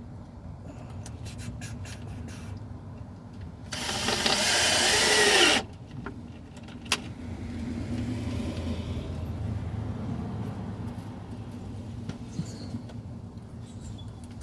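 A screw gun runs for about two seconds, driving a screw to fasten the strap holding a transmission to its jack, its motor pitch shifting as the screw bites. A sharp click follows, with light clatter of tools.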